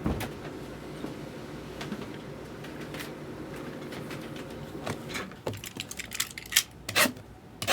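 Light clicks and taps, sparse at first, then coming quickly over the last few seconds, over a low steady room hum.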